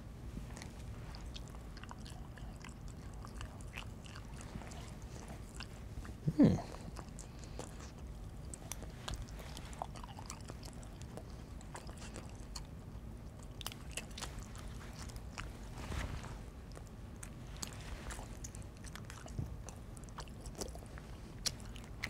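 A person chewing smoked oysters eaten from a tin with a fork. Small clicks of the fork on the tin are scattered through, with one short louder sound about six seconds in.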